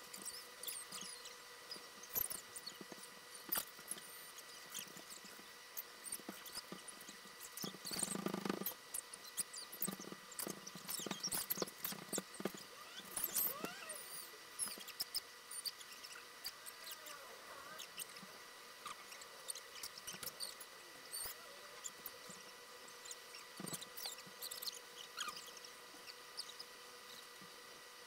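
Pencil scratching and tapping on sketchbook paper, with rustling and a few knocks as the spiral sketchbook is shifted on the table, loudest about eight seconds in. A faint steady high whine runs underneath.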